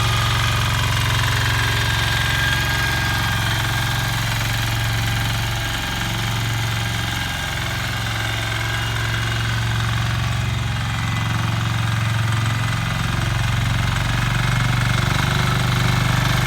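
Engine of a Yağmur motor hoe (rotary tiller) running steadily, easing off slightly for a couple of seconds midway.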